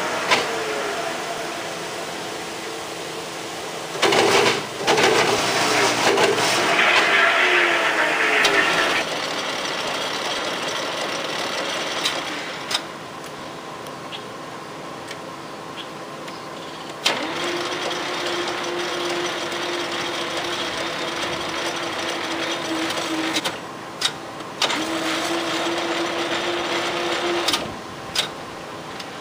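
Cincinnati Hypro metal planer running: mechanical machine noise with clicks and knocks, loudest and harshest for several seconds after about four seconds in. Later a steady humming tone twice starts and cuts off abruptly.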